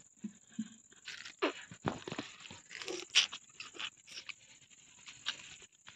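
Raw sugarcane being bitten and chewed close to the microphone: scattered short crunches and clicks, with small mouth noises between them.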